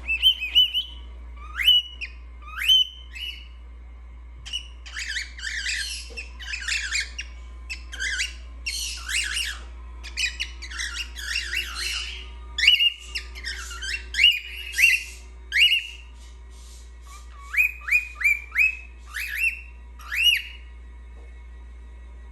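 Cockatiel whistling and chattering: phrases of short rising whistled notes mixed with scratchy chirps, in bursts separated by short pauses.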